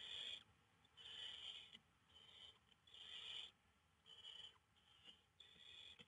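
Barn owl nestlings giving raspy hissing begging calls, short rasps repeated about once a second.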